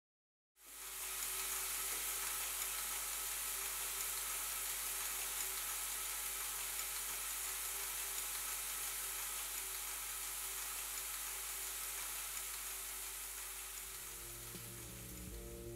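A steady crackling hiss over a low hum starts about half a second in. Near the end, low musical tones begin to come in under it.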